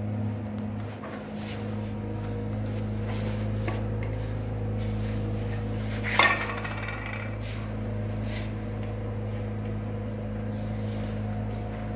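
Small clicks and knocks of plastic packing shims being picked over and a spirit level handled against an aluminium glazing channel, with one sharper metallic knock and a brief ring about six seconds in. A steady low hum runs underneath.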